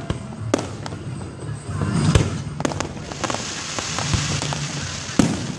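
Aerial fireworks shells bursting: several sharp bangs a second or two apart, the loudest about two seconds in and near the end, with a stretch of hiss in the middle.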